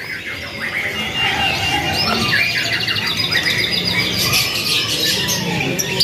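Many caged birds, lovebirds among them, chirping and squawking over one another, with a fast rattling trill about two seconds in.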